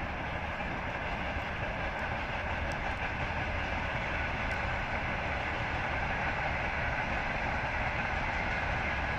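Steady distant engine rumble of a passing vehicle, even throughout with a faint whine over it.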